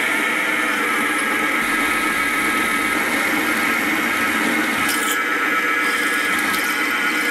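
Milling machine spindle running with an end mill cutting a step into a steel bracket: a steady machining whine with several tones, and a couple of short ticks about five seconds in.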